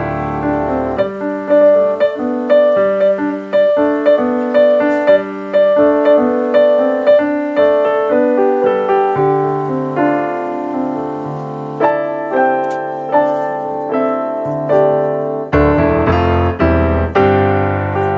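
Background instrumental music: a gentle melody of separate notes, several a second, over lower accompanying notes that join about halfway through and fill out near the end.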